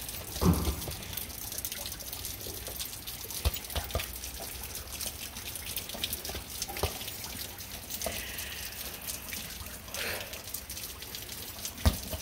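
Rain pattering and dripping onto wet pavement and puddles, with a few dull thumps and splashes as a dog plays with a soccer ball; the loudest thump comes about half a second in and another near the end.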